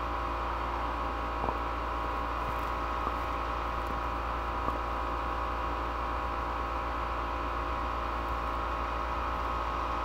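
Steady electrical hum and hiss of background room tone, holding several fixed tones, with three faint clicks in the first half.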